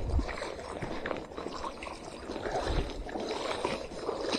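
Faint trickle of water dripping off a landing net lifted out of the water with a pike in it.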